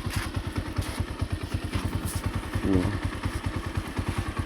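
Small engine running steadily with a rapid, even beat.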